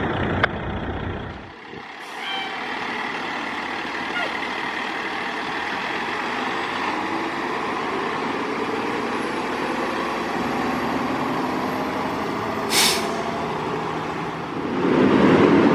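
Fire truck running steadily, with a short sharp air-brake hiss about thirteen seconds in.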